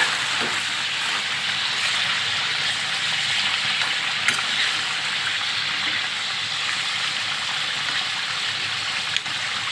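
Mutton karahi (mutton, tomatoes and oil) sizzling and bubbling steadily in a blackened iron karahi while it is stirred with a metal spoon, frying the curry down. A faint scrape or tap of the spoon is heard once or twice.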